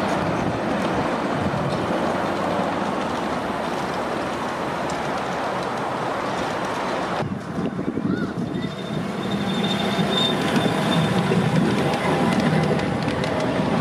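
Ridable miniature train rolling on its track, its wheels running on the steel rails. About halfway through the sound changes to a closer rumble with a thin, steady high-pitched whine or squeal from the wheels.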